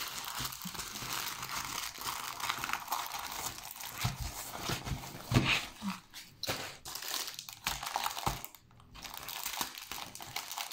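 Clear plastic packaging and a rolled canvas with its paper protective film crinkling and rustling as they are handled, with a few light knocks on the table.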